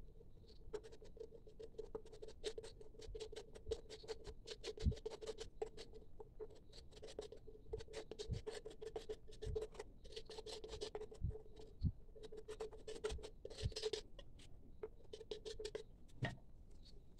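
A small metal blade scraping and spreading paste around the inside of a carved coconut-shell cup, in quick repeated scratchy strokes that come in bouts.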